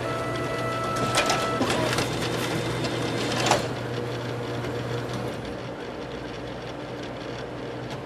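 Photocopier running: a steady machine hum with clicking and rustling in the first half and a sharp clack about three and a half seconds in, after which it settles to a quieter, even hum.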